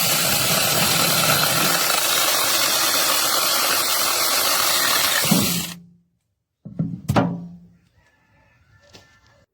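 Cordless brushless mini chainsaw running loudly, then stopping abruptly about five and a half seconds in; a second short burst of the saw follows about a second later.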